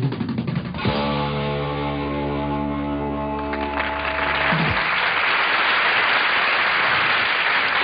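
The song ends on a long held chord from the band, which cuts off after a few seconds. An audience applauds, beginning just before the chord stops and continuing after it.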